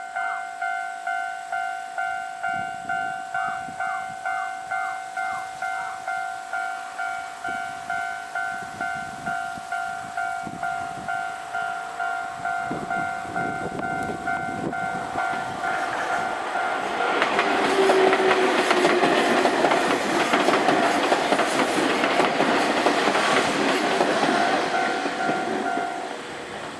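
Japanese level-crossing alarm bell ringing steadily, about two dings a second. A Nankai Koya Line train runs over the crossing with its wheels clattering, loudest past the middle. The bell stops near the end.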